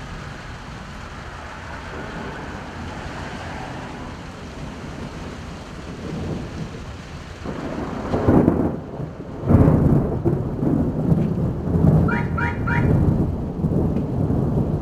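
Steady heavy rain, then rolling thunder that builds about eight seconds in, with two loud peaks close together and a long rumble after them. Midway through the rumble come three short rising high-pitched chirps.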